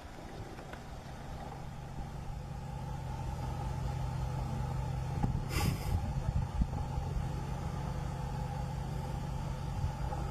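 Game-drive vehicle's engine idling steadily, a low hum that grows slightly louder, with a brief hiss about halfway through.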